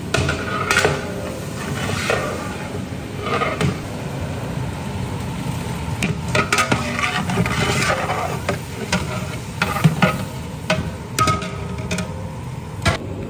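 Long-handled metal ladle scraping and clanking against a large metal pot as cubed brinjal is stirred in hot sesame oil, with a steady sizzle of frying underneath. The clatters come irregularly, some strokes louder and ringing briefly.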